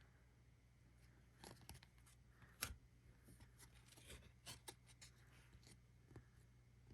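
Near silence, broken by faint scattered clicks and rustles of baseball trading cards being handled and flipped through one by one.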